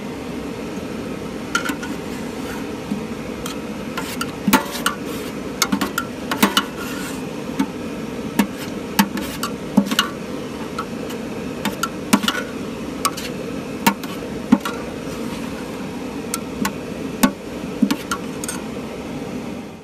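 Metal spoon clinking and knocking irregularly against a stainless steel cooking pot while lentils are stirred, over the steady rushing hum of a petrol vaporizing burner.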